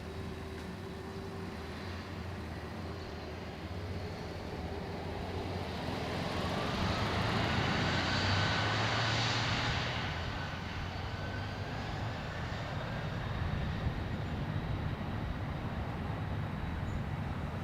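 Jet airliner taking off, its engine noise swelling to a peak about eight or nine seconds in and then easing off, with a faint whine sliding in pitch as it passes.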